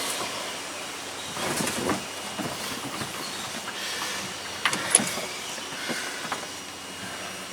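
Irregular metal clicks and clinks of a hand wrench on the Loctited nylock nut of a Polaris RZR steering shaft as it is worked loose. There is a short scraping run about a second and a half in and two sharp clinks near five seconds.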